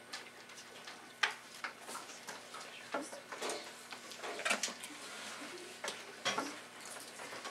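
Classroom background while students write at their desks: scattered small clicks and taps of pens, pencils and desks, a few of them sharper, with faint murmured student chatter.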